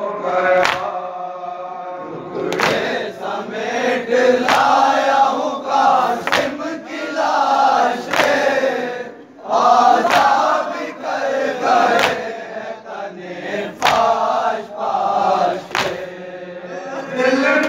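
A group of men chanting a noha together, with a sharp chest-beating slap (matam) about every two seconds keeping the beat.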